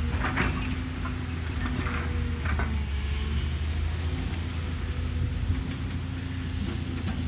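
Excavator diesel engine running steadily, with a few short clanks or knocks in the first three seconds.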